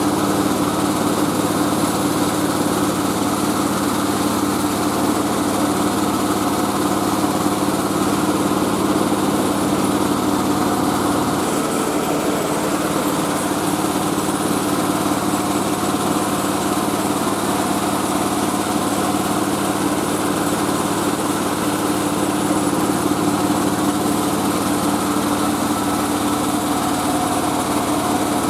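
Mobile rice-milling machine (selep padi keliling) running steadily with an even mechanical drone. Its lowest hum changes about twelve seconds in.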